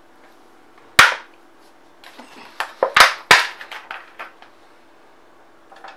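Sharp knocks and clatters of kitchen things being handled by the stove: one loud knock about a second in, then a quick run of knocks and taps, the two loudest close together about three seconds in.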